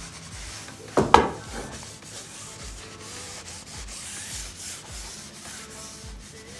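Paper towel rubbing along a pool table's rubber rail cushion, wiping on a cushion-preserving dressing. About a second in there is a sharp double knock, the loudest sound.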